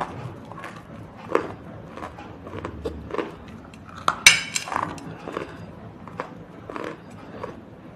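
Close-up crunching: something hard and crunchy being bitten and broken in a string of short crunches, with one louder, sharp crack about four seconds in that rings briefly.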